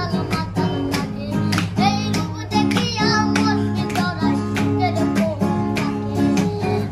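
Background song: a high voice singing over plucked, strummed acoustic guitar with a steady beat.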